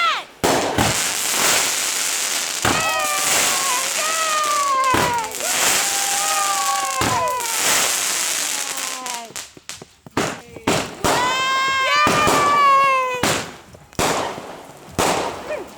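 Fireworks going off: repeated sharp bangs and dense crackling, with several falling, whistle-like tones sliding down over the top. The display briefly eases off twice, about two-thirds of the way through and near the end.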